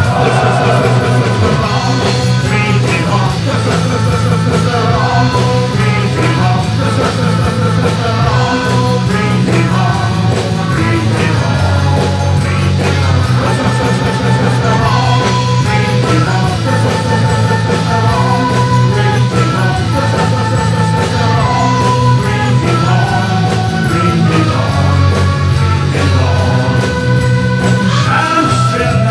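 Live rock band playing: electric guitar, bass guitar, keyboard and drums, with a male singer.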